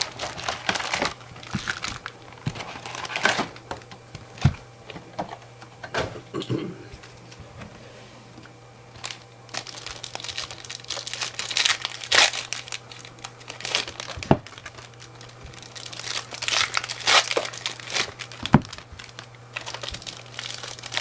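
Trading-card pack wrappers crinkling and tearing as packs are ripped open and handled, in irregular bursts of crackling.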